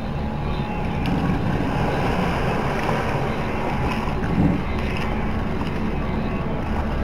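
Steady wind buffeting the microphone over the low wash of water aboard a boat.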